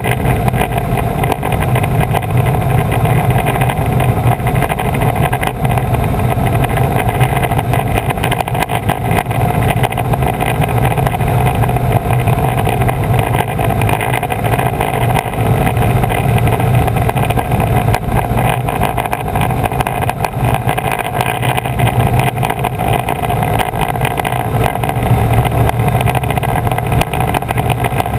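Piper PA-18 Super Cub floatplane's piston engine and propeller droning steadily in cruise, heard from outside the cabin with air rushing past the microphone.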